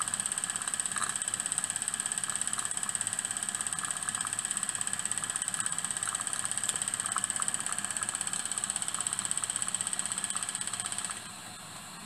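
Single-cylinder, double-acting model steam mill engine with a slide valve running fast on steam: rapid, even exhaust beats over a steady high-pitched hiss. About eleven seconds in it goes quiet as the Stephenson link reversing lever is moved and the engine stops.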